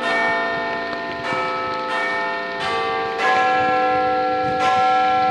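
Church bells ringing a peal: bells of different pitches are struck one after another, every half second to a second, and each note rings on under the next.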